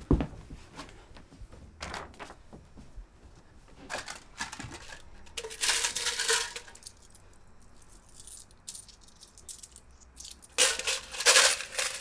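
Coins clinking and jingling as they are tipped out of a tin and handled, in several separate bursts, the loudest near the end, after a soft thump at the start.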